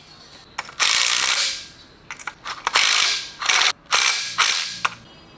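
Cordless impact driver hammering in the bolts of a water pump pulley on a small-block Chevy 350: one burst of about a second, then several shorter bursts as the bolts are run down tight.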